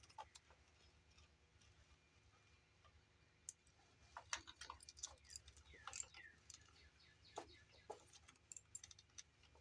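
Faint, irregular clicks and clinks of a hand ratchet and socket extension working a valve cover bolt loose, starting a few seconds in.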